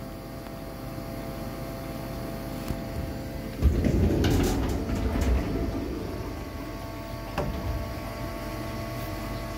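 Metal lathe machining a steel bolt under coolant spray: a steady machine hum with several held tones. A louder rushing surge comes about three and a half seconds in and lasts a couple of seconds, with a few sharp clicks later on.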